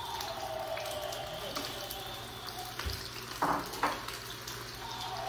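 Food frying in oil in a pan, a steady sizzle, with two short knocks a little past halfway.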